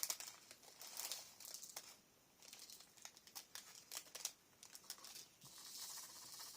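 Faint rustling and crinkling with scattered small clicks as paper and craft pieces are handled.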